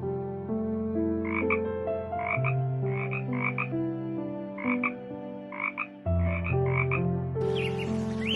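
About ten short animal calls, each a brief croak-like note, come at irregular spacing over soft sustained background music.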